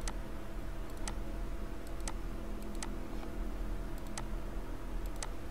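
Sharp clicks of a computer mouse button, about one a second and unevenly spaced, over a steady low hum.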